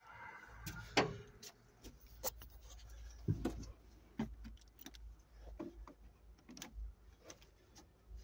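Scattered knocks and clicks from movement inside a machine's cab, the loudest about a second in, over a low rumble; no engine is heard running.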